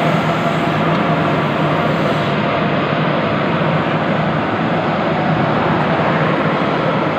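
CO2 gas-shielded (MIG/MAG) welding arc crackling steadily and without a break as the wire feeds into the weld pool, with a faint steady hum underneath.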